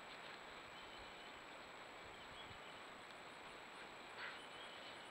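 Near silence: a trail camera's steady microphone hiss with a thin, constant high electronic whine, and a faint short rustle about four seconds in.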